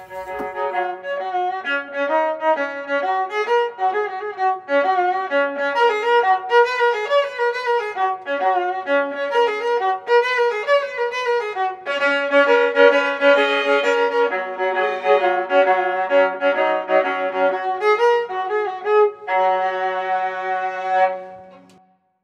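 Background instrumental music with a violin carrying a lively melody, fading out near the end.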